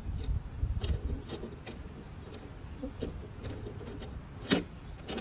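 Irregular light clicks and knocks of a RotoPax fuel can and its mounting hardware being handled and fitted, with one sharper knock about four and a half seconds in.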